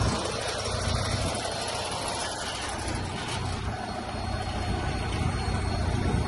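Diesel truck tractor engine idling steadily, heard from outside the truck.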